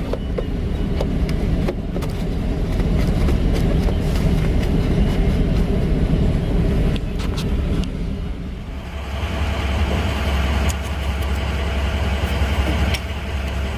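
Motor vehicle engine running steadily with a low rumble and some light clicking. About nine seconds in the sound changes to a heavier, steadier low hum.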